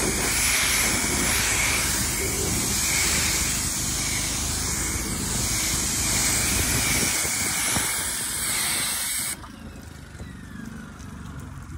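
Pressure washer spray hissing as it blasts against a truck's painted fender and hood, rinsing off a black-streak and bug remover. The spray cuts off suddenly about nine seconds in.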